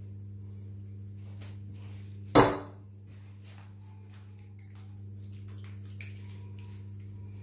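A metal ladle clanks once, sharply, against kitchenware about two seconds in as ragù is scooped up, followed by faint scrapes and taps as it is spooned over the pasta. A steady low hum runs underneath.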